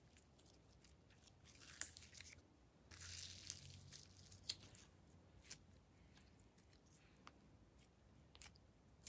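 Slime being stretched and pressed down into a dish of other slimes, giving faint sticky crackles and squelches, with a sharp snap about two seconds in and a longer crackling stretch around three to four seconds in.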